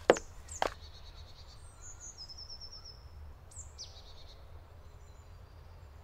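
Birds chirping in woodland, with a fast high trill about two seconds in and a quick falling call a little later, over a low steady rumble. Two sharp clicks in the first second.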